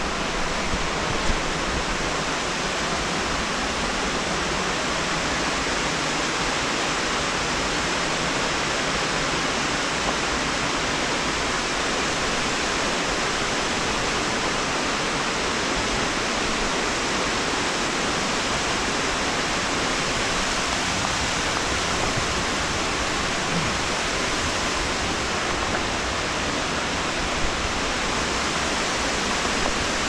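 Steady, even rush of cascading water, with a couple of faint knocks.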